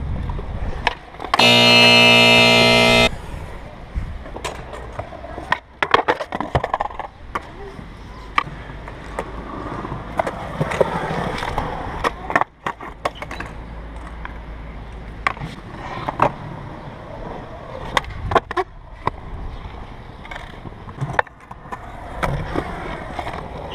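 Skateboard wheels rolling over concrete, broken by sharp clacks of the tail popping and the board landing on flatground tricks. Near the start, a loud horn-like tone holds steady for about a second and a half.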